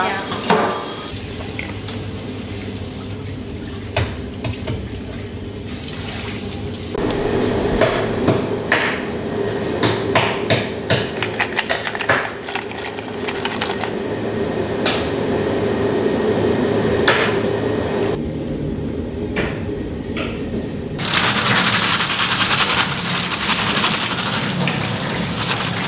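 Kitchen tap water running into a stainless steel sink as shellfish and snails are rinsed by hand. The water is interrupted by a stretch of rapid clattering of shells and bowls.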